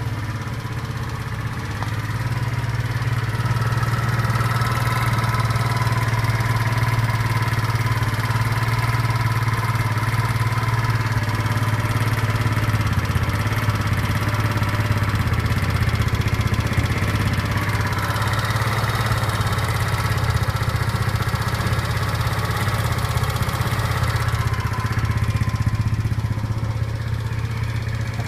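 A 150 cc four-stroke single-cylinder engine (BN157QMJ-3) running steadily, a little louder from about two seconds in, with a knock in it that the owner cannot identify.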